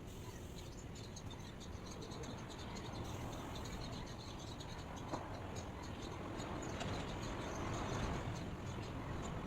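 Outdoor ambience: a steady low rumble and hiss with faint, rapid high-pitched chirping throughout, and one brief click about five seconds in.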